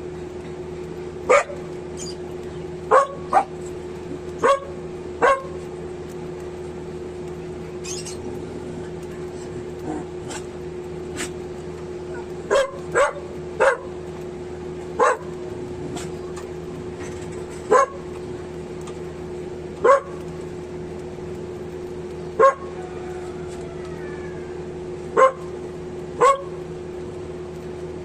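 An animal's short, sharp calls, about sixteen of them at irregular intervals of one to three seconds, over a steady low hum.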